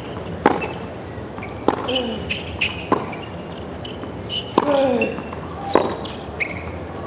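Tennis rally on a hard court: a ball struck back and forth by rackets, five sharp hits about a second and a quarter apart, with a short falling grunt from a player on a couple of the shots.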